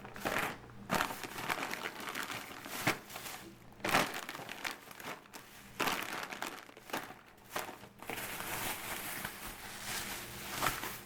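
Plastic bags of frozen broccoli florets crinkling in irregular bursts as they are handled.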